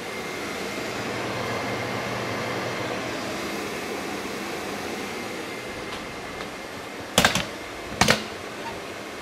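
Steady hiss, then two sharp knocks less than a second apart near the end as the handheld camera is set back down on its stand.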